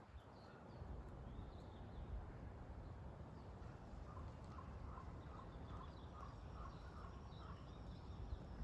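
Birds chirping in the open, with one bird repeating a short call about eight times, roughly twice a second, midway through, over a steady low rumble.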